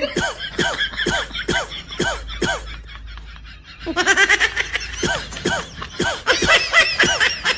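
A person laughing hard in a long run of short bursts, about two a second, easing off briefly about three seconds in, then picking up again faster.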